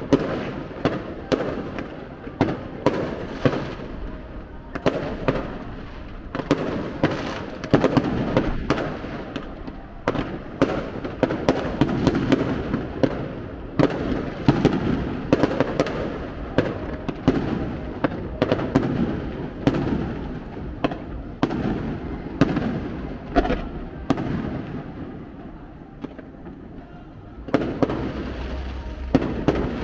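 Fireworks display: a steady run of shells bursting with sharp bangs and crackles, one or two a second, over a continuous rumble. It eases off briefly near the end, then picks up again.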